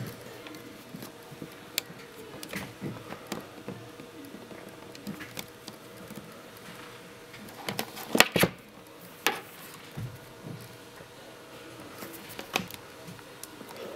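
Handling noise of computer cables: scattered clicks and knocks as a VGA plug is pushed into a laptop's port and its thumbscrews are turned, then another cable is picked up. The loudest cluster of knocks comes about eight seconds in, and a faint steady hum runs underneath.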